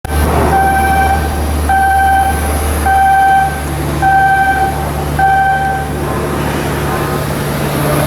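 An electronic warning beeper sounds five times, about once a second, each beep a half-second, steady mid-pitched tone. Under it a steady low machinery hum runs throughout.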